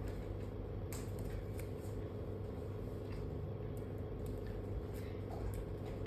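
Scattered light rustling and clicking over a steady low hum.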